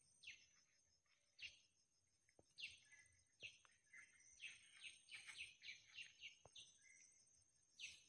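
Faint wild birdsong: short descending chirps every second or so, with a quick run of calls in the middle, over a steady high whine.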